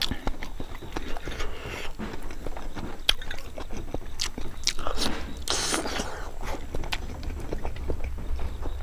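A person biting and chewing hard-boiled eggs, with many small clicks close to the microphone.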